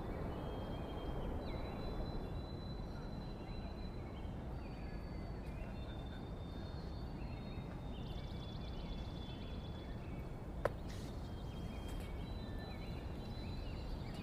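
Outdoor ambience of birds chirping, with short scattered calls over a steady low rumble, a brief fast trill around eight seconds in, and a single sharp click about ten and a half seconds in.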